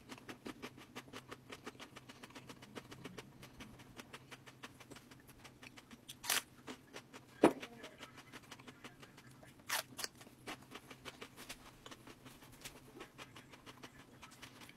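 A person chewing raw jalapeño and serrano peppers: a steady run of small crisp crunches, about four or five a second, with a few louder crunches in the middle.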